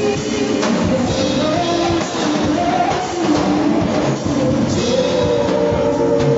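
A pop-rock song with a singer holding drawn-out notes over a drum kit and band.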